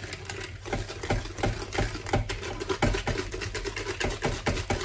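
Wire whisk beating a flan custard mixture in a bowl: quick, uneven clicking and scraping of the wires against the bowl, several strokes a second.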